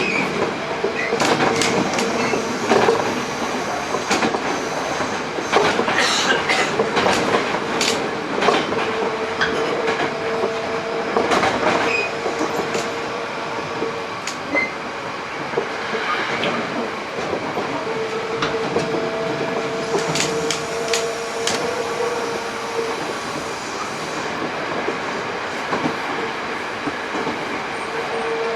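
Hankyu 8000 series electric train running at speed, heard from inside the car: steady running noise with wheels clicking over rail joints. A steady mid-pitched tone comes and goes through it.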